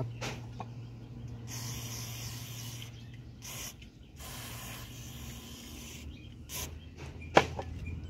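Aerosol brake cleaner hissing out through its straw in several spray bursts, cleaning a connecting-rod bearing shell. A single sharp knock comes near the end.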